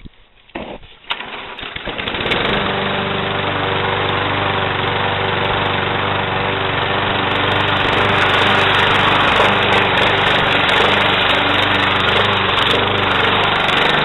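Lawn mower's small petrol engine: a few brief sounds in the first couple of seconds, then it catches about two seconds in and runs steadily.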